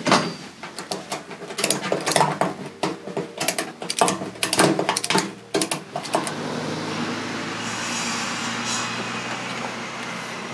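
Rapid clicking and knocking of a ratchet strap being worked tight around a washing machine on a metal hand truck, then a steady rolling noise as the loaded hand truck is wheeled over grass from about six seconds in.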